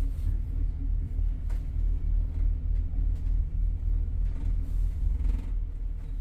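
Double-decker bus driving, heard from the front of its upper deck: a steady low rumble of engine and road noise.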